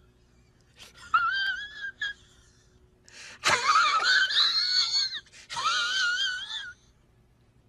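High-pitched wavering wails, heard three times, with the middle one starting suddenly and loudest.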